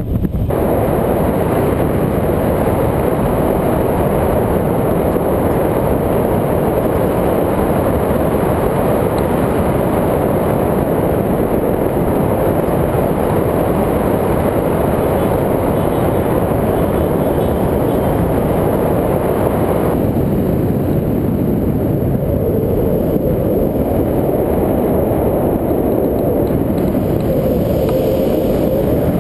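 Steady, loud wind rushing over the microphone of a pole-mounted camera during a tandem paraglider flight; it turns duller about two-thirds of the way through.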